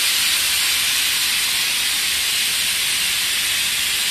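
Steady hiss of a sprayer misting solvent-based degreaser onto a repaired car body panel. The panel is being wetted so its gloss will show whether the repaired metal is swollen.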